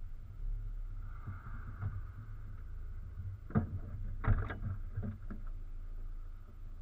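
VW Golf GTI mk2 8v rolling slowly over a dirt road, heard close to the front wheel: a steady low rumble with a few sharp knocks, the loudest about three and a half and four and a half seconds in.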